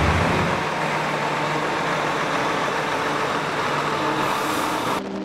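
Heavy truck's diesel engine running steadily as the truck rolls slowly forward hauling a large load. Near the end it cuts off suddenly and music takes over.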